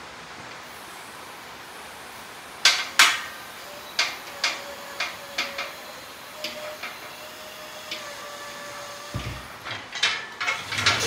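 Metal clanks and knocks as a Jeep 4.0L engine and transmission, hanging from a steel engine hoist, are shifted and lowered. A thin squeak is held for several seconds in the middle, and the knocks get heavier and closer together near the end.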